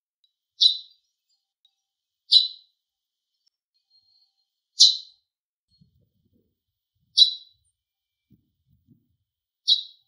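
Eurasian tree sparrow giving its call notes (jinaki): five short, high chirps spaced about two to two and a half seconds apart.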